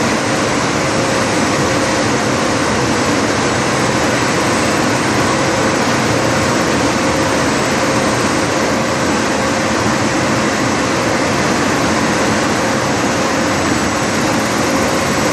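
Ten-colour rotogravure printing press running and printing plastic film: a loud, steady mechanical drone from its rollers and drives, with a steady hum running through it.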